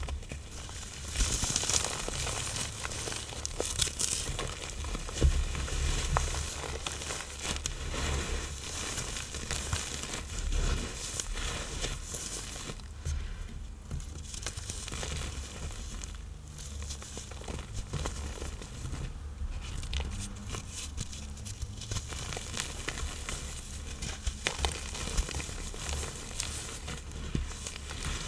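Reformed blocks of iron oxide powder and cornstarch being crushed and crumbled, a continuous crunchy crumbling full of small crackles.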